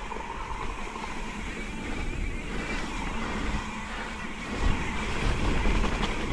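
Mountain bike rolling down a muddy, slick trail: tyres running on wet dirt with a few sharp knocks from the bike, over gusting wind rumble on the microphone.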